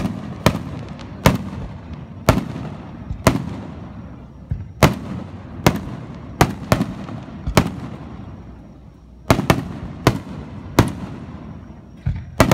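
Aerial firework shells bursting in the sky: about fifteen sharp bangs, roughly one a second, each trailing off in a rolling echo. There is a slightly longer pause a little past the middle.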